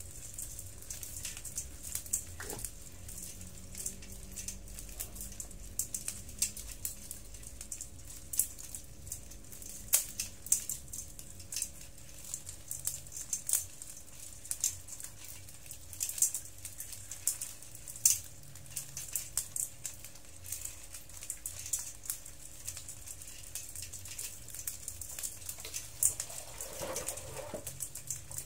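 Dozens of small hermit crabs crawling over one another in a basin: a dense, irregular patter of tiny clicks and ticks as their shells knock together and their legs scratch against the shells and the basin, with now and then a sharper click.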